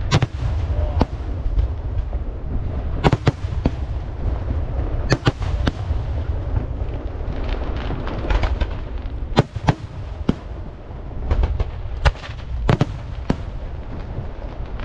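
Aerial firework shells launching and bursting: a run of sharp bangs at irregular intervals, several of them loud, over a steady low rumble.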